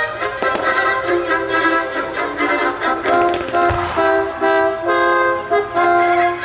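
Orchestral music with violins carrying a melody in held notes, over the sound of a fireworks display; one deep firework boom lands about three and a half seconds in.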